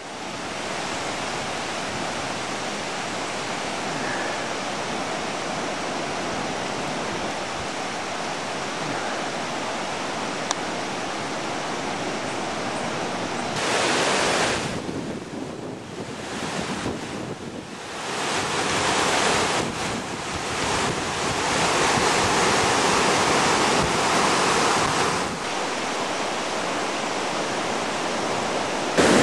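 Floodwater rushing: a steady noise of fast, high water that gets louder and softer several times in the second half.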